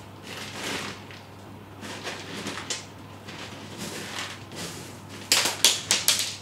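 A cat scratching in a litter box of pellet litter, the pellets scraping and rattling in three short bouts of digging, then several quicker, louder strokes near the end.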